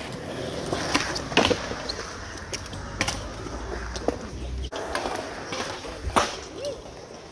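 Skateboards on smooth concrete: wheels rolling with a low rumble that cuts off about two-thirds of the way through, and several sharp clacks of boards popping and landing, the loudest about a second and a half in and just after six seconds.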